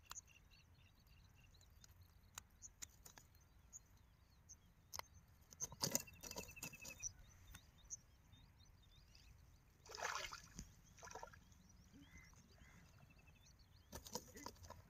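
Near silence with a faint outdoor background, broken by a few brief rustles and knocks of hands working among dry grass and crumbly soil on a bank. The loudest come about six and ten seconds in.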